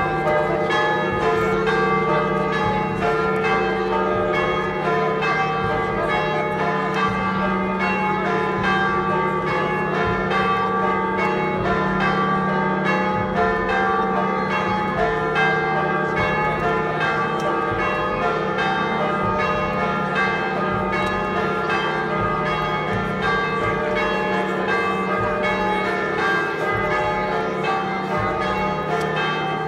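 Church bells pealing continuously, several bells struck in close, overlapping succession.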